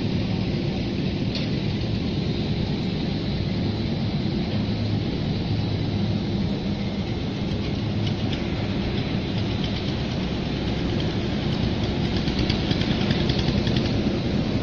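Rotary drum sawdust dryer running: a steady, even rumble and low hum with a thin high whine, and light crackling in the last few seconds.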